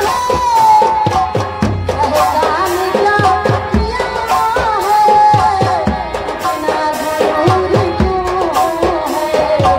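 Live Indian folk stage music: a tabla-style hand drum keeps a steady rhythm under a gliding melody line.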